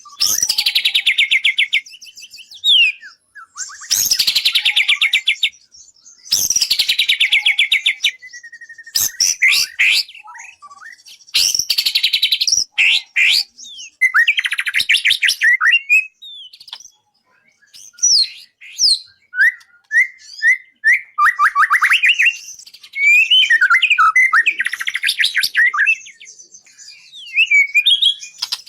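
Songbird singing a loud, varied song: bursts of fast trills and rattles, each about a second or two long, alternating with short whistled notes and slurs. It is a masteran recording, birdsong played to train a murai (white-rumped shama).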